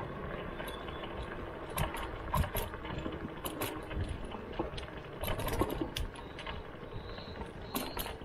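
Slidefox NT electric kick scooter rolling over an uneven surface, with frequent irregular rattling clicks from the scooter as it jolts.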